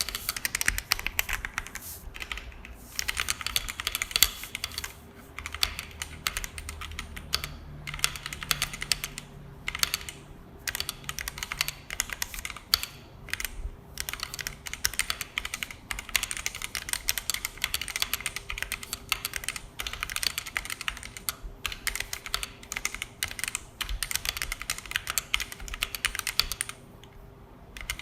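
Continuous typing on a Vortex Series VX5 Pro 60% mechanical keyboard with an aluminium case, stock Outemu Red linear switches, XDA PBT keycaps and EVA foam in the case and under the plate. It is a fast, dense run of keystroke clacks, broken by several brief pauses, the longest near the end.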